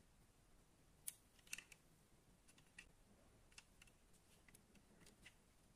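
Faint, irregular clicks and taps of a small diecast metal toy car being handled in the fingers, with about a dozen light ticks spread over a quiet background.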